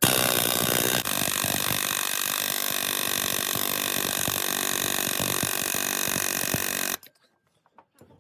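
Air impact wrench at 80 psi hammering on the fan clutch nut, a loud continuous rattle that starts abruptly and cuts off sharply after about seven seconds.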